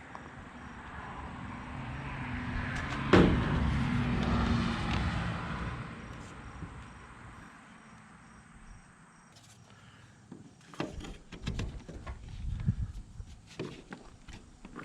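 A vehicle passes by, its sound swelling to a peak a few seconds in and fading away, with one sharp click near the peak. Later comes a run of irregular knocks and clicks.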